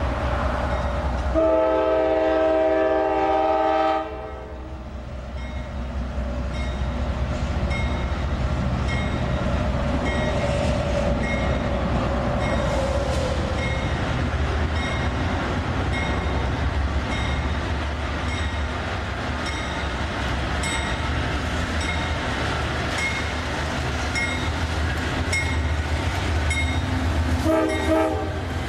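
A CSX GE AC4400CW diesel locomotive sounds a multi-note air horn in one long blast starting about a second and a half in and cutting off about two and a half seconds later. The engine and wheels on rail keep running steadily as the train approaches and passes, and there is one more short horn blast near the end.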